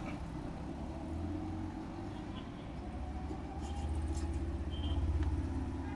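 Street traffic, led by a vehicle engine's low, steady running drone that grows louder about four to five seconds in.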